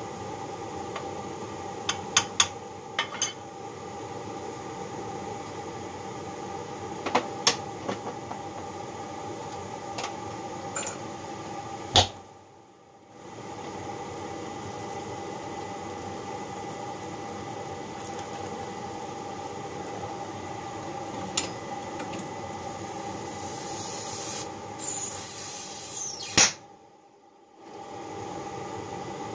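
Steady hiss of a gas torch flame heating a babbitt jig on a connecting rod, over a steady hum, with a few sharp metal clinks in the first eight seconds. The hiss grows louder shortly before the sound cuts out briefly near the end.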